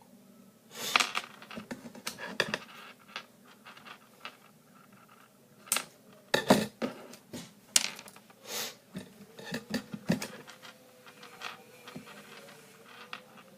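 Irregular small clicks, taps and scrapes of small objects being handled on a hard surface.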